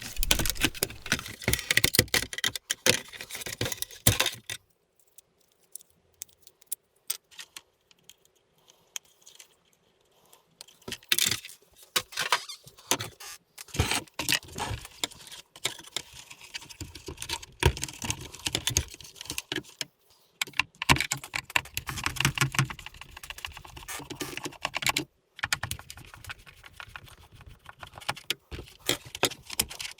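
Irregular clicking, tapping and rattling of small hard parts of a taken-apart vacuum cleaner being handled, with a quiet pause of several seconds early on before the handling resumes.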